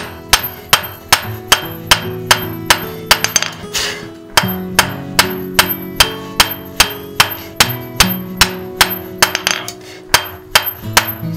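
Hand hammer striking a red-hot wrought iron bar on an anvil, drawing it out into a square taper. The blows fall steadily at about two to three a second, each with a bright metallic ring, with a brief break a little over three seconds in.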